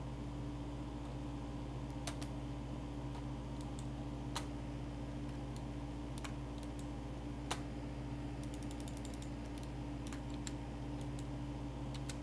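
Scattered clicks of a computer keyboard and mouse, with a quick run of clicks about eight seconds in, over a steady low hum.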